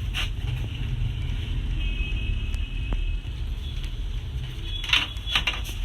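A few sharp clicks and taps from handling wires and tools during rewiring, one just after the start and a cluster near the end, over a steady low rumble.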